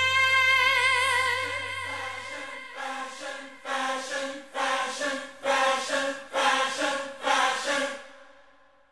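Closing bars of a 1980s J-pop song: a held, wavering note over a low bass fades away. Layered choir-like voices then sing a string of short repeated chords, a little under one a second. The song ends about eight seconds in, and its echo dies away to silence.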